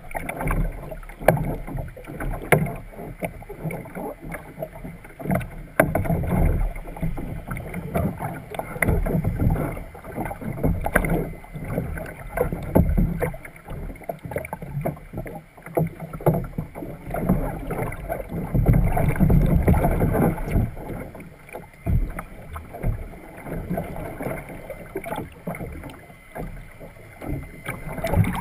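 Water churning and sloshing around a capsized kayak while a paddler in the water beside it works his way back into the cockpit, heard muffled from a deck-mounted camera under the surface. Irregular knocks of body and paddle against the hull run through it.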